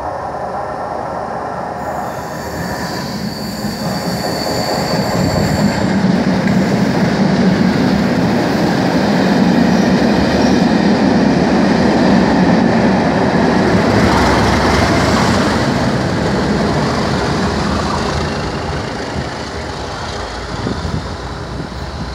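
Colas Rail Class 37 diesel-electric locomotives with English Electric V12 engines running through with a test train. The engine note comes in as the train approaches, with a high squeal for a few seconds near the start. The passing train is loudest in the middle, then fades as it draws away.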